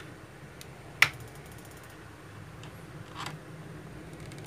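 Sharp plastic-and-metal clicks from handling the segmented flexible hose arms and alligator clips of a helping-hand soldering stand: one loud snap about a second in and a softer click about three seconds in, over a faint steady hum.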